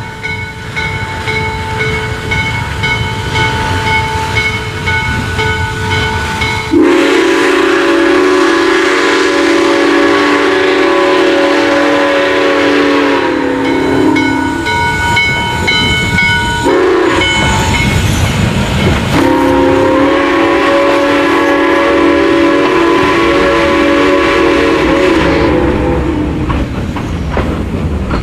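C&O 1309, a 2-6-6-2 articulated steam locomotive, rolling slowly past with its bell ringing, then sounding its chime steam whistle: a long blast, a brief toot, and a second long blast. Hissing steam and the rumble of the train run underneath, and its passenger cars roll by near the end.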